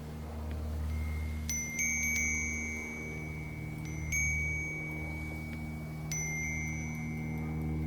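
Wind chime ringing as the wind swings it, with clusters of a few overlapping clear chimes about every two seconds, each note ringing on. A steady low hum runs underneath.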